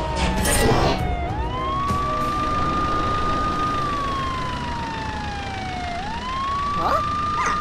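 Police car siren wailing: a high tone holds, falls slowly, then sweeps quickly back up, twice, over a low car engine rumble. A short clatter of clicks comes in the first second.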